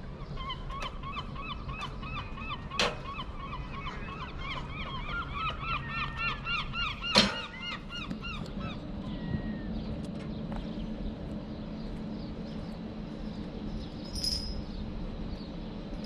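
A flock of gulls calling, many quick, nasal, honking calls overlapping in a busy chorus that dies away after about eight seconds. A sharp knock sounds about seven seconds in, and a low steady hum carries through the second half.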